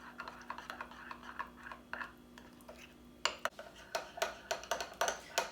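A utensil stirring egg and almond-flour batter in a small bowl, with soft scraping at first and then, a few seconds in, quicker clinks against the bowl at about two to three a second.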